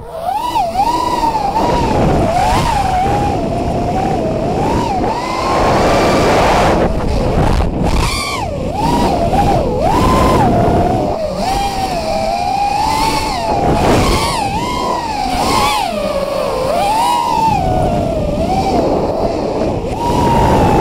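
FPV racing quadcopter's brushless motors and propellers whining, recorded by the onboard camera, the pitch rising and falling constantly with the throttle over a rush of air.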